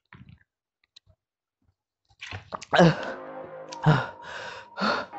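A few faint swallowing sounds from drinking out of a plastic bottle, then intro music comes in about two seconds in, with a heavy beat about once a second.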